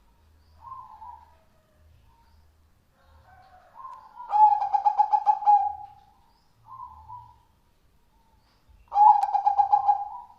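Zebra dove (perkutut) cooing. A few soft short coos, then two loud rapidly pulsed, trilling coo phrases of over a second each, about four and a half seconds apart.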